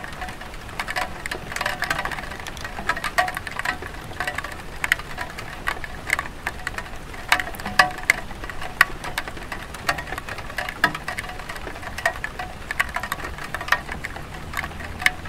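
Light rain on a tile roof: a steady soft hiss with many irregular, sharper individual drops pattering and dripping throughout.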